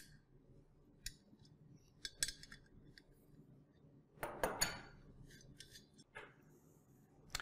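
Faint metal clicks and clinks of a 13 mm wrench working the M8 bolts out of a metal pole-mount bracket, with a louder cluster of clinks about four and a half seconds in and a wrench and bolt set down on a wooden bench near the end.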